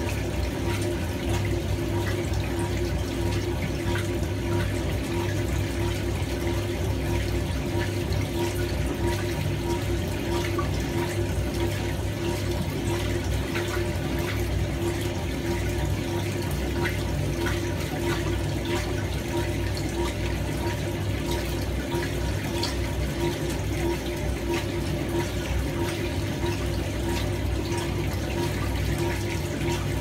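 1976 Hoover 620 top-loading washer agitating a load in water: a steady motor and transmission hum under the slosh and swish of water and clothes in the tub.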